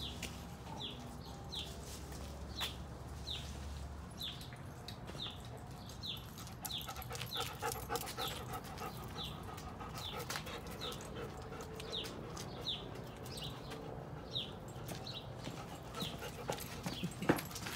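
Two German Shepherd dogs panting and moving about as they play, with sharp clicks and knocks near the end.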